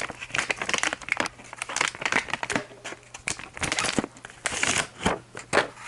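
Plastic packaging crinkling and rustling as it is handled, in dense irregular crackles, over a steady low hum.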